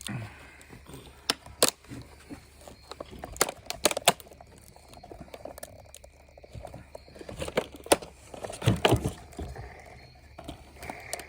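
A new trimmer head and its plastic packaging being opened and handled: scattered sharp clicks, knocks and some crinkling, loudest in a cluster near the end.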